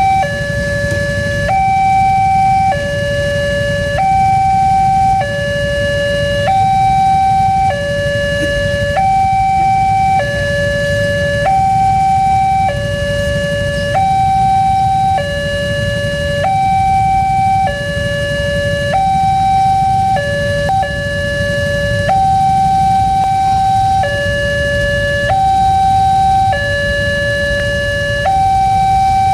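Alkmaar-type railway level-crossing warning siren sounding a steady two-tone hi-lo alarm, switching between a higher and a lower pitch about every 1.2 seconds.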